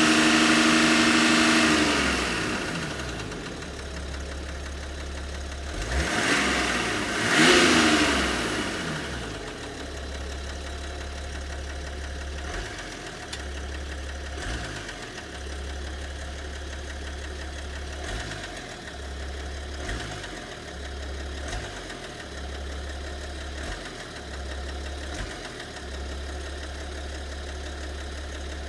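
BMW 730d's M57 3.0-litre straight-six diesel held at raised revs, dropping back to idle about two seconds in, blipped twice around six and seven and a half seconds, then idling. Its idle carries the mysterious knock the owner is trying to track down.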